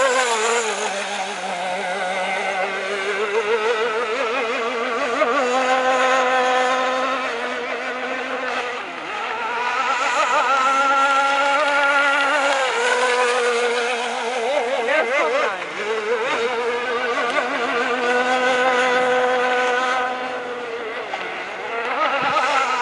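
Radio-controlled speedboat's motor running at high revs: a steady buzzing whine whose pitch wavers and shifts up and down several times as the boat speeds across the water.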